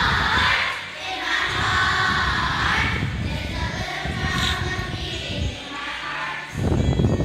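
A group of young children singing a song together, with musical accompaniment underneath.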